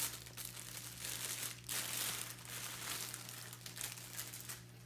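Clear plastic packaging bag crinkling and rustling in irregular handfuls as it is pulled open and a toy is slid out of it, loudest about two seconds in and fading near the end.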